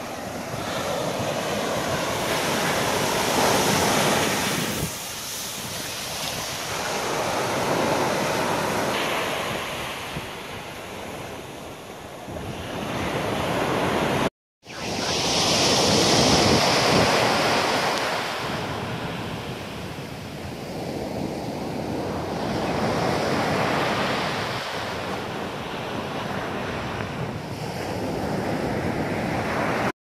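Sea surf breaking and washing up a sandy beach, swelling and falling back every few seconds, with wind buffeting the microphone. The sound cuts out for a moment about halfway through.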